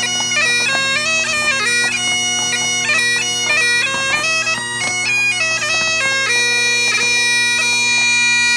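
Great Highland bagpipe playing a lively tune with quick grace notes over its steady drones. About six seconds in the melody settles onto one long held note over the drones.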